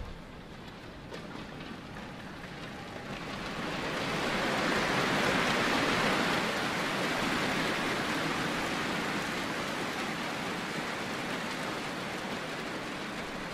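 Arena crowd applauding at the end of a karate kata. The applause swells about four seconds in and slowly dies away.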